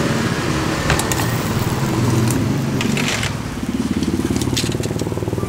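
A steady, rapidly pulsing motor drone, the kind of small engine running at idle, with a few sharp metallic clicks and scrapes of tongs and skewers against a wooden chopping block, the longest about three seconds in.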